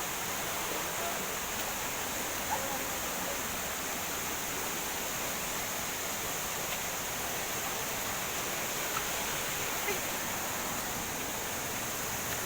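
Steady rush of flowing water from the river and waterfall, a constant even hiss.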